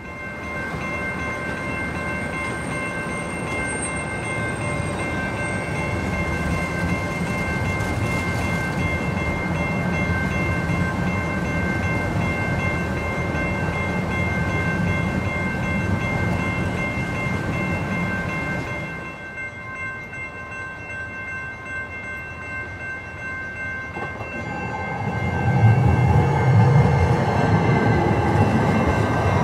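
Light-rail trains running past on street track: a steady rumble of wheels on rails with a steady high whine above it. Near the end a train passes close and louder.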